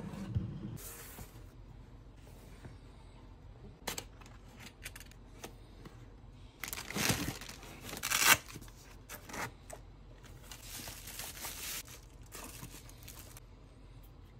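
Unboxing handling sounds: a knock as the camera body is set down on a wooden table, then scattered clicks and bursts of rustling and ripping scrapes as a nylon lens case is handled and opened, loudest about two thirds of the way through.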